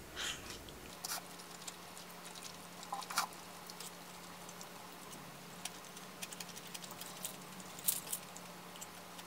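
Eating sounds: wooden chopsticks and a spoon clicking and scraping against a ceramic bowl and plate, with faint chewing, over a low steady hum. A sharper cluster of clicks near the end comes as the chopsticks pick at a crisp shredded-potato pancake.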